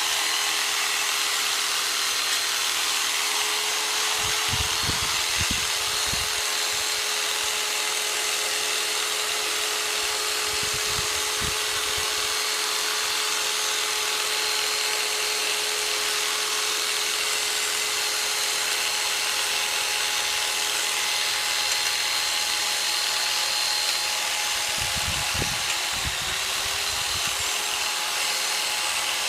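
Electric jigsaw converted into a percussion massager, its motor running steadily with a fixed whine and a high buzzing hiss. A few short low thuds come about five seconds in, around eleven seconds and near the end.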